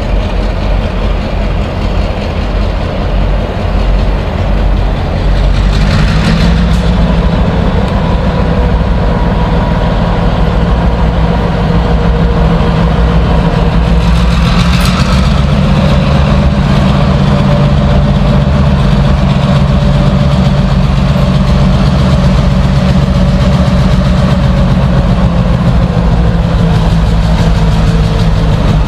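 EMD G22 diesel-electric locomotives running at low speed under load. The engine note steps up about five seconds in and again around fifteen seconds, with a whine above it that rises and falls.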